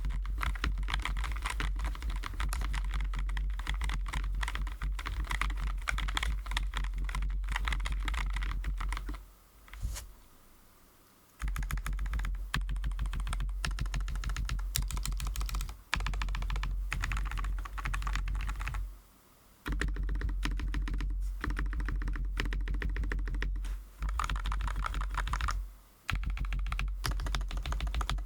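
Fast typing on a Keychron J9 low-profile mechanical keyboard with Keychron Milk POM switches: dense runs of keystrokes broken by short pauses, the longest about ten seconds in.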